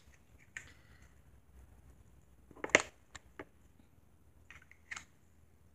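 A few short clicks and taps from hands handling small plastic toys, the sharpest about three seconds in, over faint room tone.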